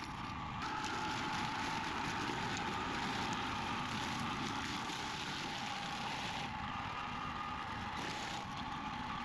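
A 30-year-old hammer knife mower runs steadily, its engine drone and a constant high whine over a rushing, crackling noise as its flail blades shred medake (Simon bamboo) stems into chips.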